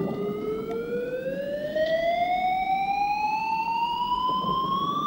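Electronic tone from an experimental light-measuring camera, gliding steadily upward in pitch; the higher the tone, the more light it is registering.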